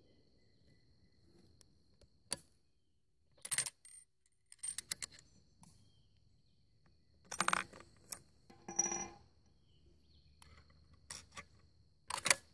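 Bolt of a Remington 722 .308 Winchester rifle being worked after a shot: a scattered series of sharp metallic clicks and clinks of steel and brass as the bolt is opened and the spent case comes out.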